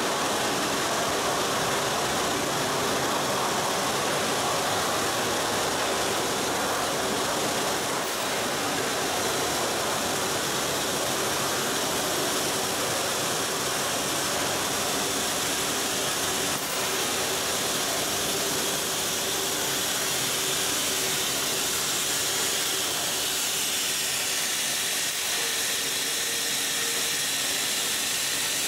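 High-frequency welded pipe mill running on test: a steady, dense machine noise from the drives, forming rolls and moving steel strip, with a hiss over it.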